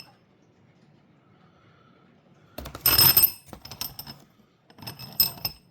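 Steel head bolts clinking against each other as they are handled, in several bursts of sharp metallic clinks with a bright ring, the loudest about three seconds in and another near the end.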